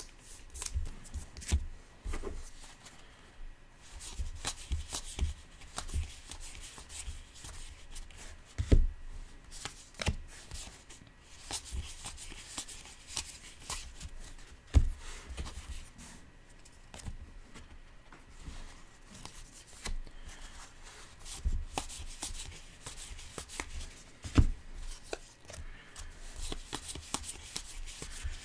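Baseball trading cards (2019 Topps Allen & Ginter) being flipped through by hand and laid onto a stack on a tabletop: a steady run of soft card clicks and slaps, with a few louder taps on the table.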